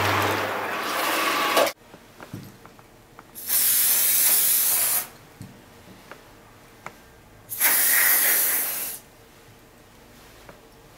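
An electric hand tool running under foamy water stops abruptly about two seconds in. Then a Nano Protech aerosol can sprays twice in bursts of about a second and a half each, with light clicks of handling between.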